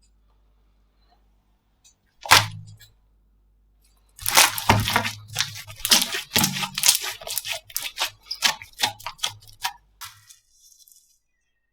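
Slime being handled: one sharp crackle about two seconds in, then a dense run of crackles and wet pops for about six seconds, stopping near the end.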